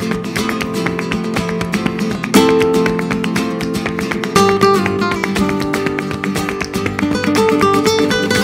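Background music: flamenco-style acoustic guitar playing fast plucked runs and strums, with sharp accented chords about two and a half and four and a half seconds in.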